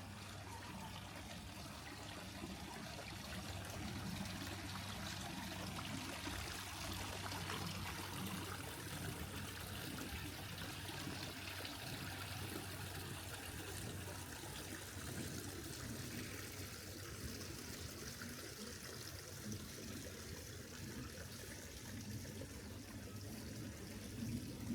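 Small waterfall: water trickling and splashing steadily.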